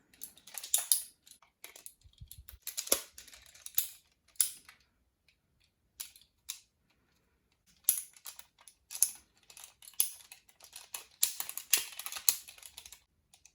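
Folded origami paper being handled: irregular bursts of crisp rustling, crinkling and small clicks, with short quiet gaps between them.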